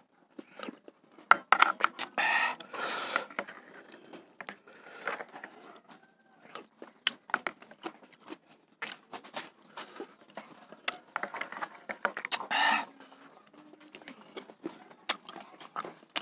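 Close-up eating sounds: a metal spoon clicking and scraping on a plastic plate as spicy meatball broth is scooped, with two longer slurps of the broth about two seconds in and again near the end.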